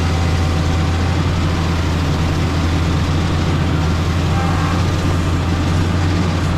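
Motor grader's diesel engine running steadily, a deep, even drone with no change in speed.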